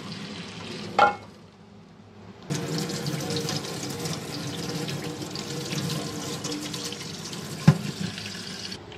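Freshly boiled vermicelli being drained in a steel sink: hot cooking water poured from the pot through a plastic strainer, a sharp knock about a second in, then a kitchen tap running onto the noodles in the strainer from about two and a half seconds. A single click comes near the end, and the tap stops just before the end.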